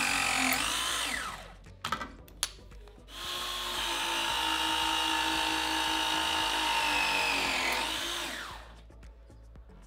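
Cordless press-fitting tool crimping copper pipe fittings: its motor whines steadily, then falls in pitch and winds down at the end of each press cycle, twice. There are a couple of sharp clicks in the gap between the two presses as the jaws are moved to the next fitting.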